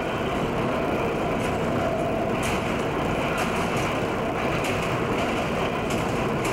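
Broad Street Subway train running on the rails: a steady running noise with a few faint, irregular clicks.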